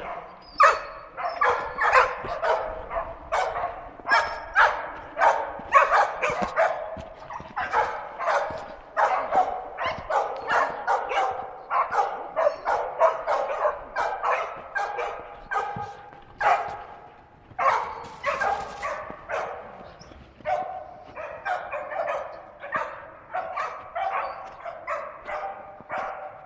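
Bedlington terrier barking continuously at wild boar, two or three high barks a second, briefly easing off about two-thirds of the way through: a hunting terrier baying boar.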